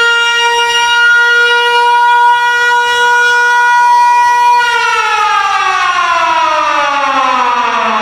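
Civil-defence air-raid siren sounding a nuclear-attack warning, holding one steady wailing tone. About four and a half seconds in it begins to wind down, its pitch falling steadily.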